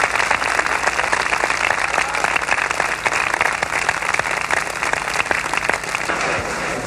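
Large crowd applauding, dense clapping that dies down near the end.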